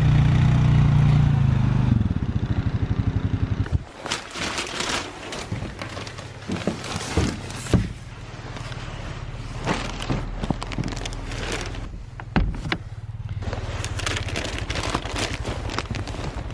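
Small ATV engine running close by, then dropping away about four seconds in. After that, irregular crunching and scraping in snow.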